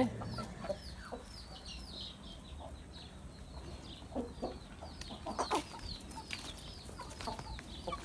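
Chickens clucking in a yard, a few short clucks standing out in the middle, over a steady scatter of quick, high chirps.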